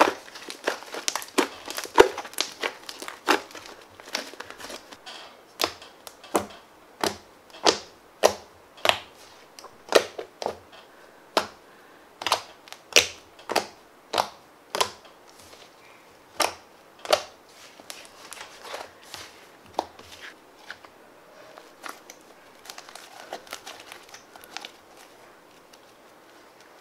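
Fluffy slime squeezed and pressed by hand, giving off a series of sharp wet clicks and pops as air pockets burst, about one or two a second. After about twenty seconds the pops fade to a soft squishing crackle.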